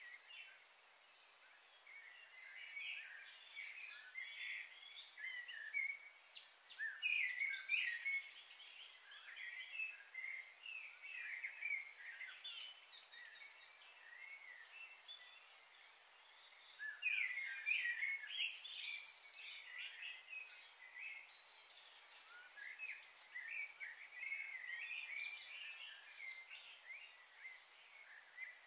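Small birds chirping and twittering in quick clusters of short calls, over a faint steady background hiss.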